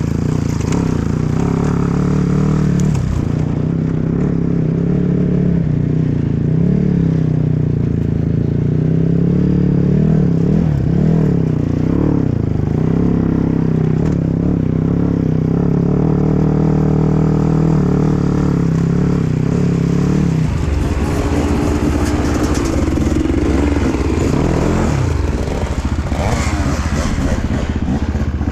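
Dirt bike engine revving up and easing off repeatedly as it is ridden off-road, with clatter from the rough ground. About two-thirds of the way in the engine note drops to a lower, rougher running.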